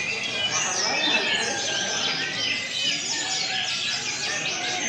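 A chorus of caged brown-chested jungle flycatchers (SRDC) singing over one another, with many quick overlapping chirps, trills and whistles going on without a break.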